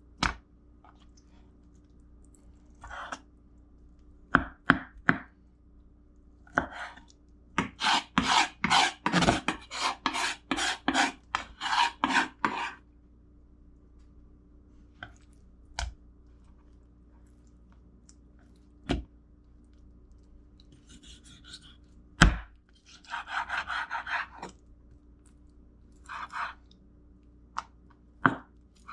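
Knife cutting raw chicken on a cutting board as the skin and fat are trimmed off: scattered sharp knocks of the blade on the board, with a run of quick cutting strokes in the middle.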